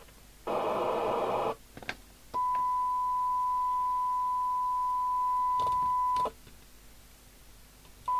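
A CB radio's loudspeaker opening on its squelch: about a second of receiver hiss, then a steady 1 kHz test tone for about four seconds that cuts off abruptly. A few clicks come in between, and the tone comes back briefly near the end as the squelch opens again at its threshold.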